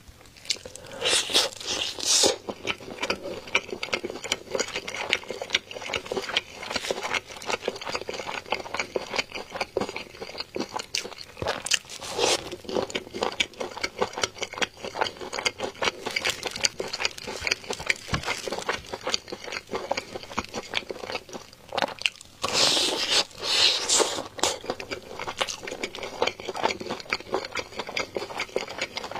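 Close-up crunching and chewing of crispy, sauce-glazed fried chicken: a steady stream of crackly chews, with a few louder crunching bites standing out.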